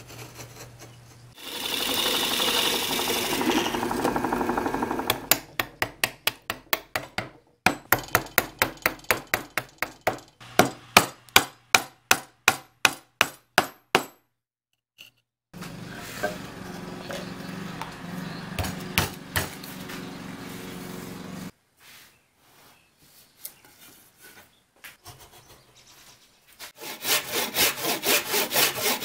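Several hand-tool woodworking sounds in turn. First comes a few seconds of loud rasping cutting noise. Then a run of sharp knocks, about two a second, as a chisel is struck into walnut, followed by a stretch of steady cutting noise. Near the end a hand saw cuts a pine block in quick, even strokes.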